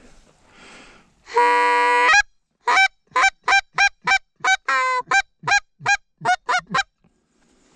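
Goose honking: one long held note, then a quick run of about a dozen short honks, about three a second, with one drawn-out note in the middle.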